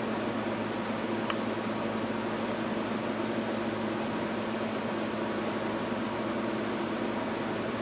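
Steady background hum, like a running fan or small motor, with a low drone underneath and one faint tick about a second in.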